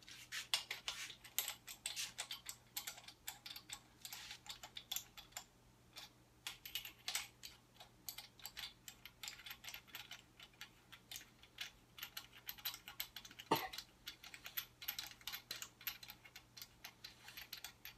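Hand socket ratchet clicking in irregular runs, with small metal clinks, as the main bearing cap bolts on a Ford 302 block are run down snug. A brief squeak falling in pitch comes about two-thirds of the way through.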